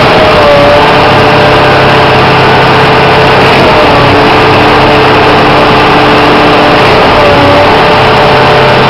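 Stationary concrete pump running steadily, with a brief wobble in pitch about every three and a half seconds.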